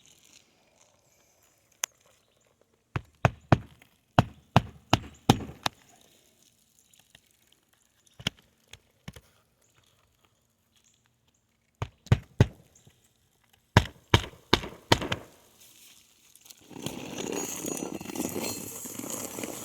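A hand hammer driving roofing nails into a roof shingle: sharp strikes in quick runs of three to six blows, with pauses between. Near the end a steady rustling, scraping noise takes over.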